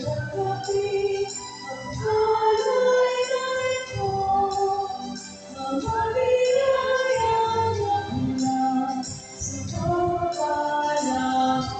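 An offertory hymn sung with instrumental accompaniment, in held, flowing sung lines.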